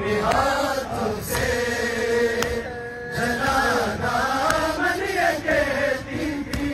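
Mourners chanting a noha, a Shia Muharram lament, together, the sung voices rising and falling in long drawn-out lines, with a few sharp slaps of hands beating on chests.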